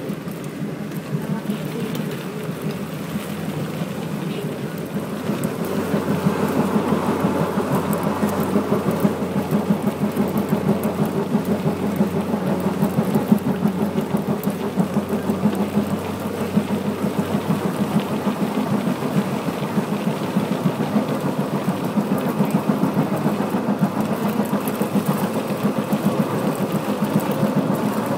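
Singapore MRT train running along the line, heard from inside the carriage: a steady rumble that grows louder about five seconds in, as the train picks up speed.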